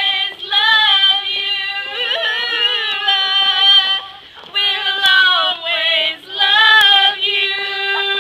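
A group of young women singing a high-pitched tune together in held, drawn-out notes, breaking off briefly about four seconds in and again about six seconds in.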